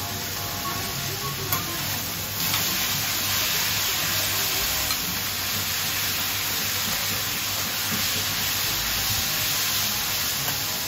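Yakisoba noodles and cabbage sizzling on a hot flat iron griddle as metal spatulas turn them through their sauce. The sizzle grows louder and harsher about two seconds in.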